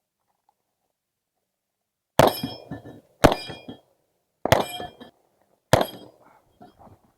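Four shots from an Uzi Pro 9 mm pistol, spaced about a second or more apart and starting about two seconds in, each followed by a short metallic ring. Fainter knocks follow near the end.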